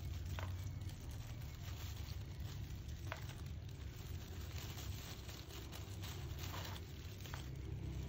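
Faint soft scrubbing and a few small clicks of a brush working dye paste into goat-hair doll wefts, over a steady low background hum.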